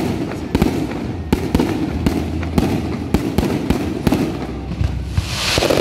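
Aerial fireworks bursting in quick, irregular succession, sharp bangs several times a second over a low rolling rumble. About five seconds in, a louder burst of crackling hiss swells up.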